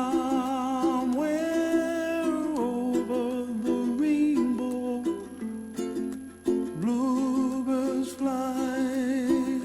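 Background music: plucked strings keep a steady rhythm under a long, wavering melody line that slides between notes.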